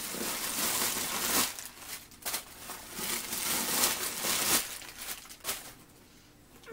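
Tissue packing paper rustling and crinkling as it is pulled out of a new handbag, in several spells.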